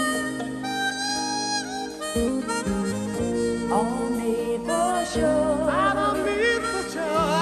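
Chromatic harmonica playing a solo line with sliding, wavering notes over a soul-pop ballad's backing band of bass and sustained chords.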